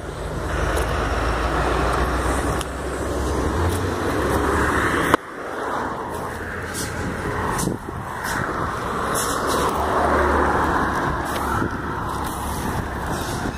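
Road traffic passing close by on a highway: vehicles going past in two loud swells, with a deep rumble under them. A sharp click about five seconds in.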